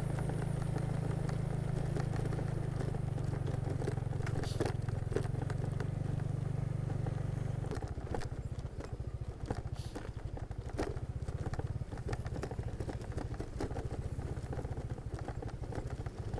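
A motor vehicle's engine running steadily; about eight seconds in its note changes to a rougher, rapid pulsing. A few light clicks and knocks sound over it.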